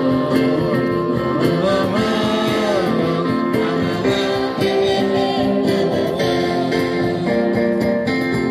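A song with guitar accompaniment and singing, the guitar keeping a steady beat under a wavering sung melody.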